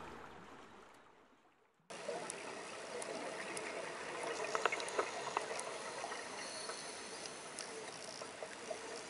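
Soft music fading out, then, about two seconds in, underwater reef ambience cuts in: a steady hiss scattered with small clicks and crackles.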